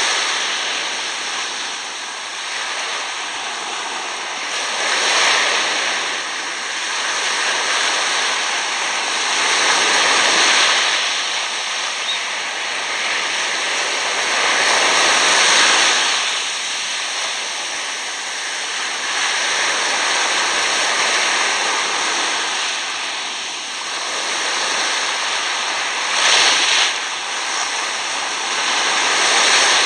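Small sea waves washing up over coarse sand at the water's edge and draining back, the wash swelling and fading about every five seconds.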